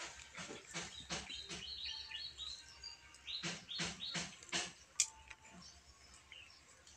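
Footsteps crunching through dry leaf litter in two short runs, with short high bird chirps between them and a sharp click about five seconds in.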